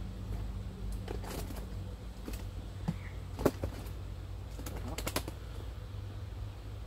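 A few scattered sharp clicks and light knocks, the loudest about three and a half seconds in and a quick run of clicks a second and a half later, over a steady low hum.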